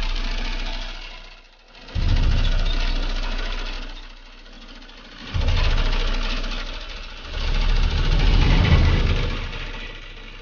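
A motor or engine running, surging loudly every two to three seconds: each surge starts suddenly with a low hum and fades away.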